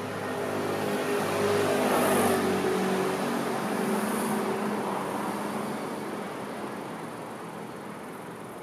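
A motor vehicle passing by on the street: its engine sound swells to a peak about two seconds in, then slowly fades away.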